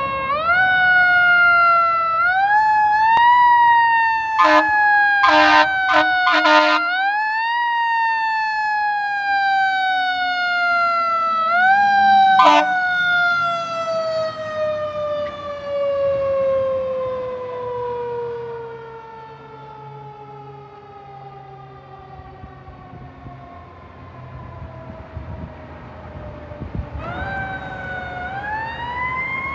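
Fire engine siren wound up in short pulls, then coasting down in one long falling wail that fades away. Short horn blasts sound about four to seven seconds in, with one more at about twelve seconds. Near the end the siren winds up again.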